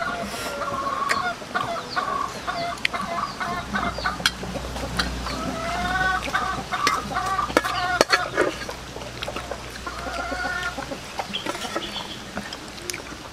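Chickens clucking, in repeated short calls, with scattered sharp clicks.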